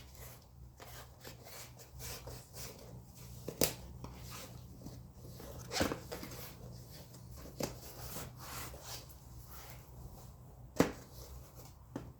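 Hands working a handcycle's rear tire bead onto the rim: quiet rubbing and handling of the rubber tire, with a few sharp clicks, the loudest about eleven seconds in.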